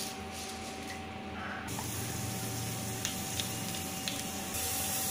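Mustard seeds and urad dal frying in hot sesame oil in a small tempering pan: a steady sizzle that grows louder about a second and a half in and again near the end, with a few faint pops as the mustard seeds begin to splutter.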